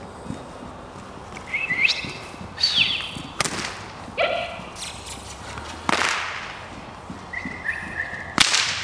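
A whip cracking three times, sharp snaps a couple of seconds apart with the last the loudest, used to drive a loose horse on around an arena. Short high-pitched calls come in between the cracks.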